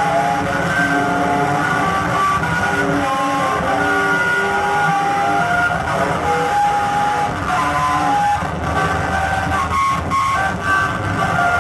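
Live experimental electronic music: a slow line of held notes, each lasting under a second, over a steady low noisy drone.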